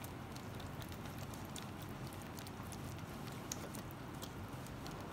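Silicone whisk beating mayonnaise and pickle juice in a stainless steel bowl: a steady wet stirring with scattered light ticks of the wires against the metal.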